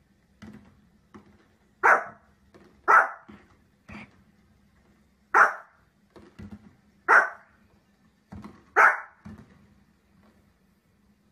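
A dog barking: five loud single barks one to two seconds apart, with softer, shorter sounds between them.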